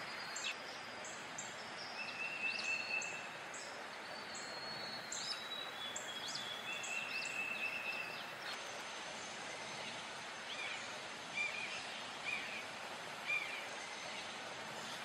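Outdoor background hiss with faint bird calls. In the first half there is a fast series of very high repeated chirps and a few held whistled notes. From about halfway there are four short rising-and-falling calls, spaced about a second apart.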